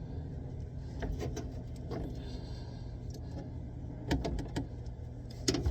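Scattered light clicks and knocks of plumbing parts and tools being handled, with a louder clatter near the end, over a steady low hum.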